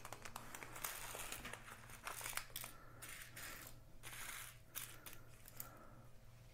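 A small plastic bag of diamond-painting drills crinkling as it is opened, and the tiny drills being poured out with light clicks into a plastic drill tray. It is faint, with the clicking busiest in the middle.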